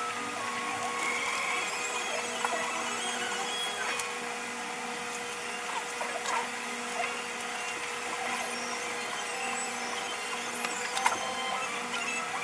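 Work-session sounds played back at five times speed: a steady hum under a constant scatter of quick clicks and short squeaky chirps.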